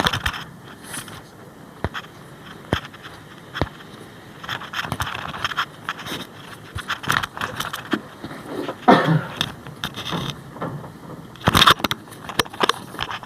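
Hands rubbing and pressing on a patient's back and clothing during a chiropractic massage: irregular scraping and rustling with scattered sharp clicks, the loudest bursts in the second half.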